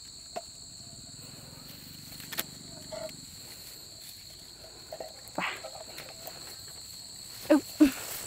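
Steady high insect chorus, crickets shrilling at two unchanging pitches. A few faint clicks are heard, and two short, loud voice-like sounds come close together near the end.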